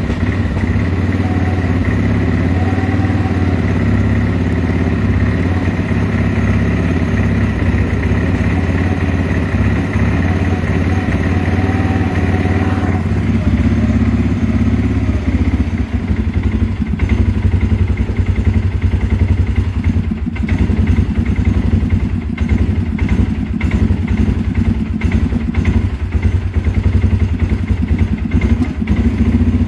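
Engine of a used CFMOTO ATV idling after being restarted, steady at first and more uneven, with a clattery edge, in the second half. The owner says it runs and idles but not perfectly, after carburetor cleaner and a hard run to loosen something up.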